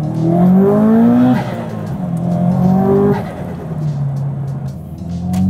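Subaru Impreza's STI flat-four boxer engine pulling hard. Its pitch rises and drops sharply twice with upshifts, holds lower, then climbs again near the end.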